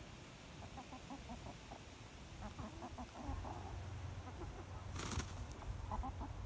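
Hens clucking softly in short clusters of low calls while they forage. About five seconds in, there is a brief loud rustle.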